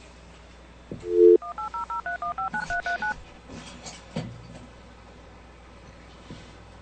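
A telephone line is opened: a brief dial tone, then a quick run of about eleven touch-tone (DTMF) beeps as a phone number is dialed over the line.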